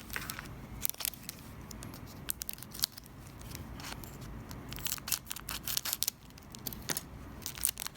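Trading cards being handled and flipped through one after another: irregular crisp clicks and short scrapes of card edges against each other, coming in clusters.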